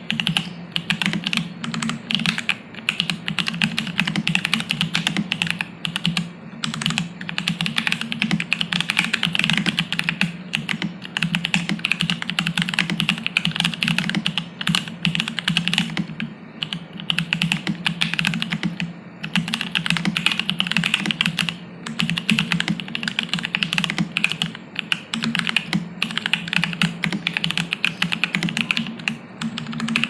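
Fast, continuous typing on an Aquila mechanical keyboard with lubed Sp-Star Polaris Purple switches in a polypropylene plate and ABS Cherry-profile keycaps, with no dampener in the case. The keystrokes run together in a dense patter, broken by brief pauses every few seconds.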